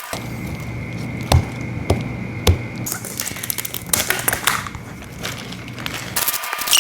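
Sharp snaps and cracks as rubber bands are stretched tight around a watermelon, three clear ones about a second and a half, two and two and a half seconds in. The rind is under strain and sounds about to burst.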